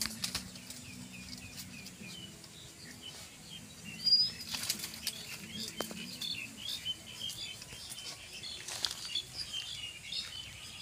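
Small birds chirping in quick, short high notes throughout, over rustling and snapping of dry sticks and brush, with a louder rustle about four seconds in.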